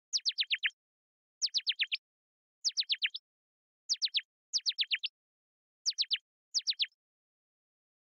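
Synthesized bird chirping from Ableton Operator, its pitch envelope looping so the tone sweeps quickly downward over and over. It comes in seven short bursts of a few quick, high, falling chirps each, with brief gaps between them.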